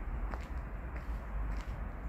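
Footsteps of a person walking on damp concrete, a couple of faint steps over a steady low rumble.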